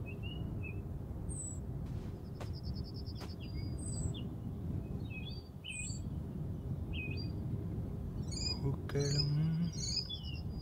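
Wild birds chirping, with scattered short calls and a couple of quick trills, over steady low outdoor background noise. Near the end a man's voice is heard faintly in the distance, murmuring an old song.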